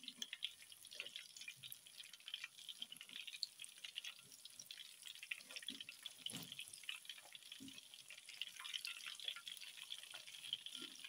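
Battered chicken pieces deep-frying in a wok of hot oil: a faint, dense crackle of spattering oil, with a few louder pops spread through.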